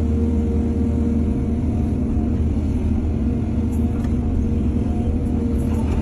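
Excavator's diesel engine running steadily with a low, even drone, and a couple of faint clicks about four seconds in.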